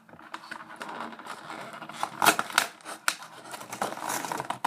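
Scraping and rustling of cardboard and plastic toy packaging being handled, with a few sharp clicks and a loud knock at the very end.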